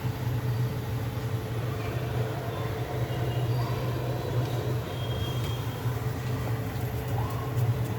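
An electric motor running with a steady low hum.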